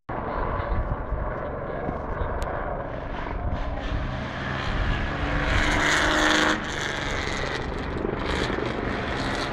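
Engine noise from a passing motor vehicle over a steady background, swelling to a peak about six seconds in and then dropping away sharply.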